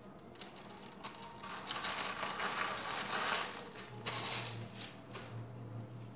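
Kitchen-counter handling noise while a shawarma is assembled: a couple of seconds of rustling and crinkling, then a few knocks about four seconds in, with a low steady hum setting in at the same time.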